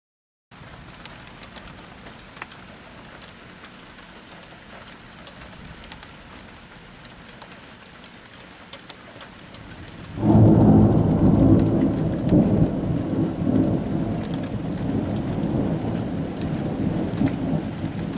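Steady rain hissing with scattered drop ticks. About ten seconds in, a sudden loud thunderclap breaks in and rolls on as a deep rumble that slowly fades.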